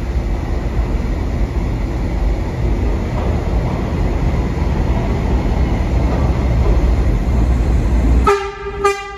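New York City subway train rumbling loudly along the track through the station. Near the end the rumble stops abruptly and the train's horn sounds twice in short blasts.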